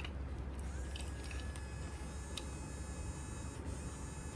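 Small toy DC gear motor of the projector's scene-change indexing mechanism whirring steadily, with a few faint clicks. It keeps running because it cannot find the limit switch that signals the next scene position.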